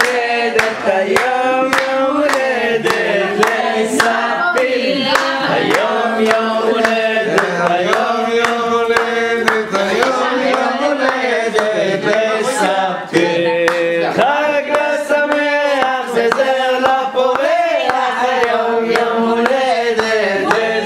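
A group of men, women and children singing a song together, clapping along in a steady beat.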